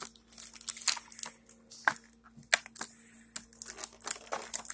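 Plastic blister packaging of a Pokémon card collection box crinkling and crackling in irregular bursts as hands grip and work it open.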